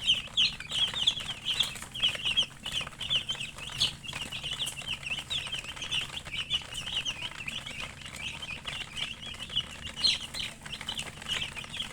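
A group of domestic chicken chicks peeping without a break, many short, high chirps overlapping one another.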